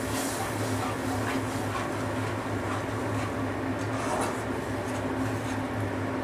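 Flat spatula stirring and scraping poppy-seed and green-chilli paste frying in mustard oil in a kadai, with a series of faint scrapes over a steady low hum.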